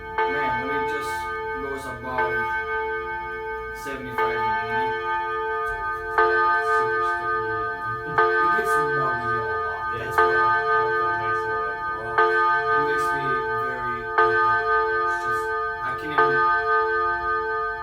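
Seiko chime clock striking, the same ringing chime chord struck about every two seconds, eight or nine times, each strike ringing on into the next.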